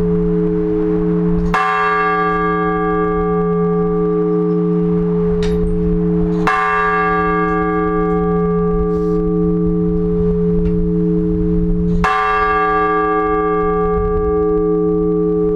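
Large Orthodox church bell tolling slow, measured single strokes in the blagovest manner, which announces the start of a service. Three strikes fall about five seconds apart, and each one rings on into a long, steady hum that carries through to the next.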